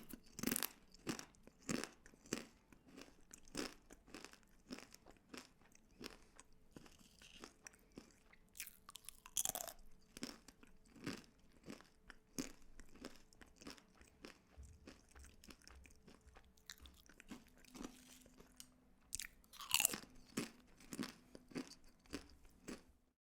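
Close-up crunching and chewing of crisp, crunchy food, a steady run of sharp crackly bites and chews about two a second, with louder crunches about nine seconds in and near twenty seconds. It cuts off suddenly just before the end.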